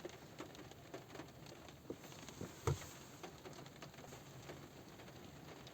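Light rain pattering on a car roof: scattered single drops tapping at irregular intervals over a faint hiss, with one louder drop about halfway through.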